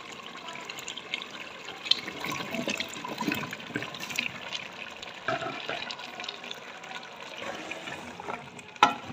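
Beef and gravy sizzling in a pot as raw potato chunks are tipped in, with irregular knocks and clatters of the potatoes and the spoon against the pot.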